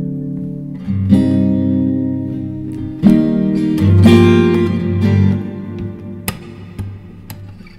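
Background music: guitar playing sustained chords that change about a second in and again around three and four seconds in, softening toward the end.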